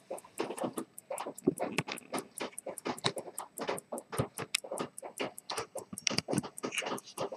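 Zenith Grand Prix Paris 1900 pocket watch with a 15-jewel lever escapement, ticking evenly at about five ticks a second. Louder, irregular noises sound underneath the ticking.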